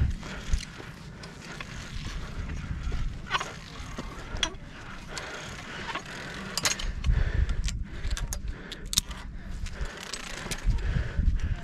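A climber working up the steel-cable handline on bare granite: scattered sharp clicks, scuffs and metallic knocks from shoes, hands and gear against the cables and rock. Gusts of low rumbling wind noise hit the microphone twice, in the second half.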